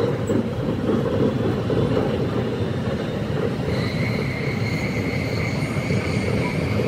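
Tsukuba Express train running at speed, heard inside the front car: a steady rumble of wheels on rail, played back at double speed. A steady high whine joins the rumble a little over halfway through.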